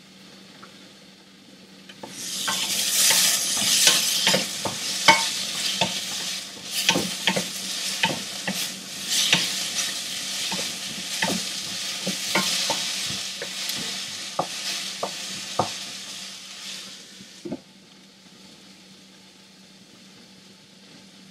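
Sliced Chinese okra (angled luffa) sizzling in a hot pan while a spatula stirs it, clicking and scraping against the pan. The sizzle starts suddenly about two seconds in and stops with a knock near the end.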